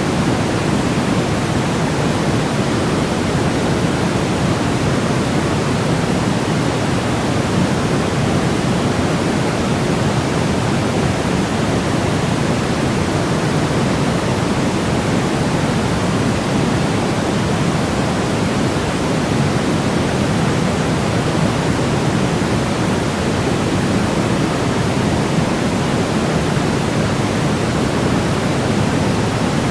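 Steady electronically generated sleep-aid noise, a constant even hiss with no change or rhythm. Its weight sits toward the low end, a softer, deeper rush like pink noise rather than a bright white hiss.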